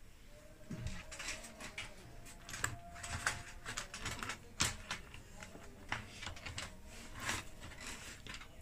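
Irregular light clicks, taps and knocks of the electric heater's metal parts and cover being handled and fitted during reassembly, a few of them sharper than the rest.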